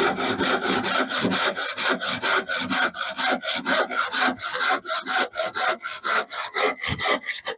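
Hand saw cutting through a wooden board with quick, even back-and-forth strokes, about five or six a second. It stops suddenly near the end.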